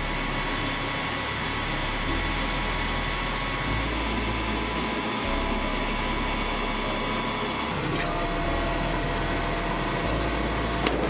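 Iskander missile launcher vehicle's engine and hydraulics running with a steady whirring hum and a thin whine over it as its stabilizer jacks lower onto the ground. The tone shifts slightly a few times.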